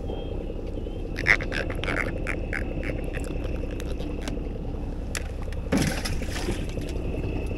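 A freshly caught small catfish croaks in a quick string of short clicks while it is held and unhooked, over a steady low engine hum. A brief splash comes about six seconds in.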